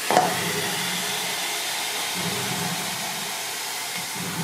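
A glass pot lid is set down with a sharp clink just after the start, then a steady hiss of food frying in the uncovered steel pot.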